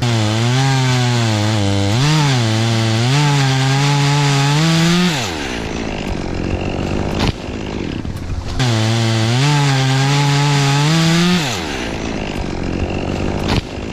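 Two-stroke chainsaw cutting wood at full throttle, its pitch wavering as the chain bogs in the cut. It drops back toward idle about five seconds in, then revs into a second cut of about three seconds before dropping back again.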